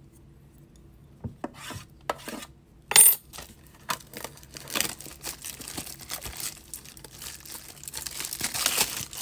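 A shrink-wrapped metal Topps trading-card tin being handled: a few light clicks, one sharp metallic clink about three seconds in, then a run of scratching and crinkling as fingers pick at and peel the plastic wrap.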